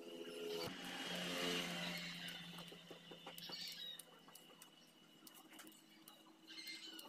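A motor vehicle's engine passing by, loudest about a second and a half in and fading away by about four seconds. After it come a few small sharp clicks of pruning shears snipping branches.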